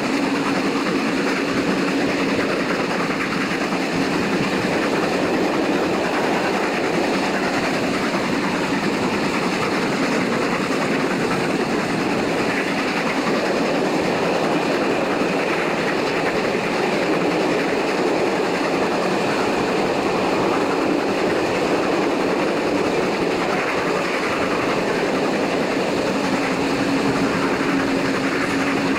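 Passenger coach of a steam-hauled train running at speed, heard from an open window: a steady rush of wheel-on-rail noise and wind, with a steady low hum near the start and again near the end.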